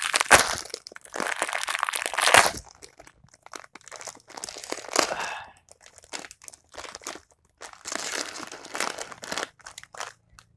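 Plastic Mamee Monster snack packet crinkling as it is torn open with the teeth and then handled. It is loudest in the first two and a half seconds, then comes in shorter bursts with quiet gaps between.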